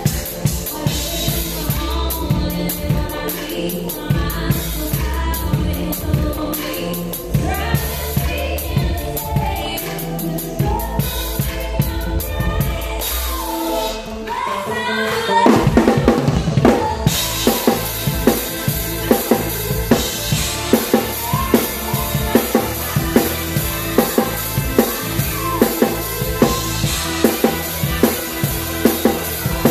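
Live band music heard up close from the drum kit: the drums keep a beat under bass, keys and a woman singing. About halfway through a quick drum fill leads into a louder section with the Zildjian cymbals washing over a steady beat.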